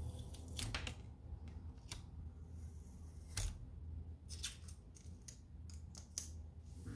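A scatter of short, sharp clicks and taps as a small instant-photo print is handled and lifted off a table, over a steady low hum.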